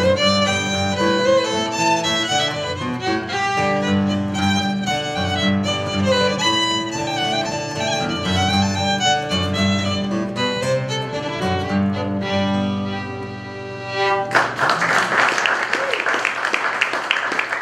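Fiddle and acoustic guitar playing an old-time tune, ending on a held final note that fades about twelve seconds in. A couple of seconds later applause breaks out.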